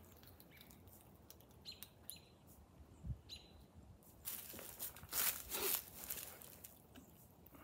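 Footsteps and rustling in dry leaves as a cable is pulled across the ground, loudest in a burst of scuffs about four to six seconds in. Before that, a few faint high chirps and one soft thump.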